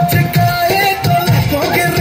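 Loud dance song playing, with a singing voice over a steady thumping beat.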